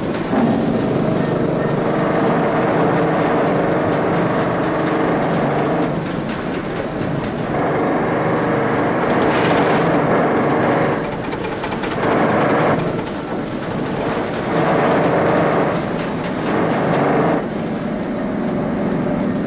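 Pneumatic riveting hammers on steel locomotive boiler plate, a loud rapid rattle in bursts. The first burst runs about six seconds, the next about three, and shorter ones follow.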